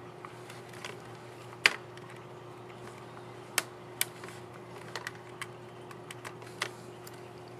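Sharp, irregular plastic clicks from a Samsung Chromebook XE500C13 laptop key as the keycap and its scissor mechanism are handled and pressed. The loudest click comes about a second and a half in, with a scatter of smaller ones after.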